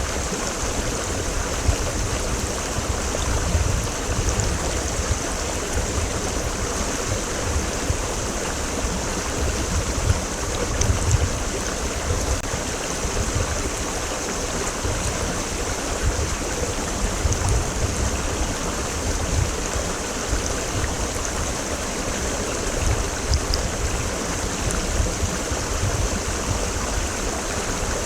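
Creek water rushing steadily, an even rush with a low rumble underneath.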